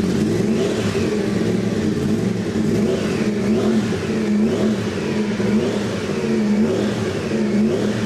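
Racing motorcycle engine running and revving, its pitch rising and falling repeatedly.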